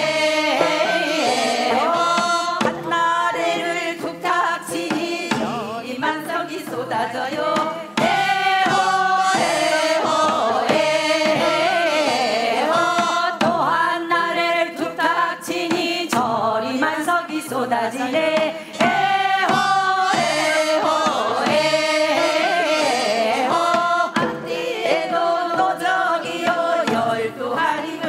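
Group of singers performing a Gangwon-do folk work song (minyo), with a steady percussion beat underneath.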